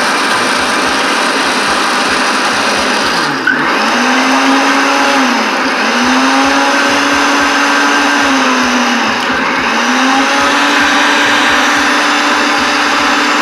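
Electric countertop blender running at full power, blending red pepper, onion and uziza seed with a little water. The motor's pitch sags briefly every few seconds and picks back up.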